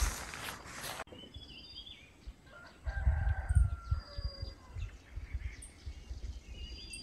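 A rooster crowing, with small birds chirping over a quiet background. A burst of low rumble comes about three seconds in.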